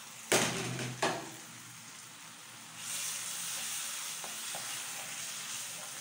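Tomato sauce with grated carrot sizzling in a frying pan while a spoon stirs it. Two sharp knocks come in the first second, and the sizzle grows louder about three seconds in and holds steady.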